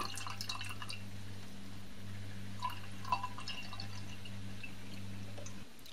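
Magnetic stirrer running with a steady low hum while its stir bar spins in a thick slurry of precipitate in a glass beaker, with a few faint liquid drips about three seconds in. The hum cuts off just before the end.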